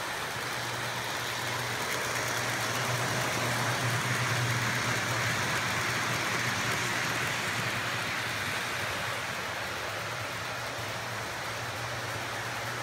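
MTH Santa Fe model passenger train running on its track, the wheels and motor giving a steady rumble over a low hum. The rumble grows louder a couple of seconds in, is loudest midway as the train passes close, then eases.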